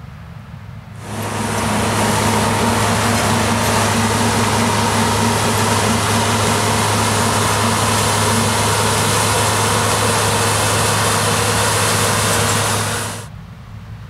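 New Holland CX8070 rice combine harvester running close by: a loud, steady drone of engine and threshing and chaff-spreading machinery with a low hum underneath. It starts abruptly about a second in and cuts off shortly before the end.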